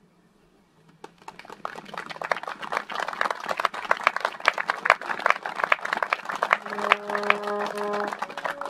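Crowd applauding, starting about a second in after a speech ends and going on steadily. Near the end, sustained notes of a musical instrument begin over the clapping.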